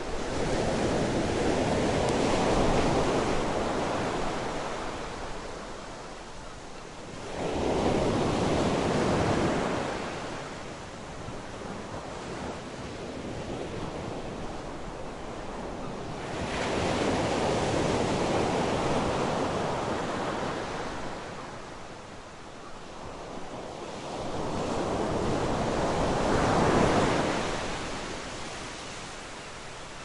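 Sea waves breaking on a beach, four in turn: each a rushing hiss of surf that swells up and dies back. They come at the start, at about 8 seconds, at about 17 seconds and at about 25 seconds.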